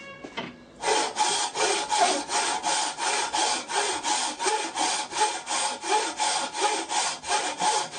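Wooden frame saw cutting through a block of very hard dark hardwood held in a bench vise: quick, even rasping strokes, about three a second, starting about a second in.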